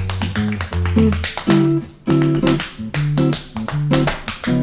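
Tap shoes clicking in quick rhythms on a hardwood floor over music of plucked guitar and bass, with a brief break about two seconds in.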